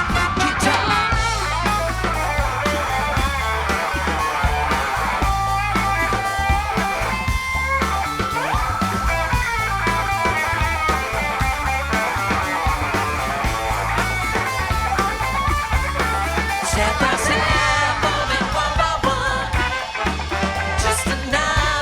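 Upbeat soul music played live by a full band, with a steady bass line under guitar and sustained melodic lines.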